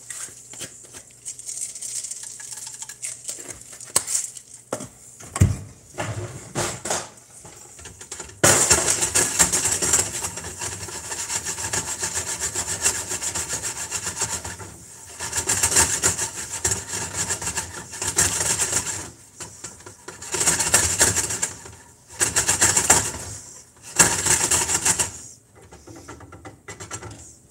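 A silicone whisk scraping and stirring in a nonstick frying pan of sizzling garlic and lime-juice sauce, in repeated strokes about a second long. It turns loud and busy about a third of the way in.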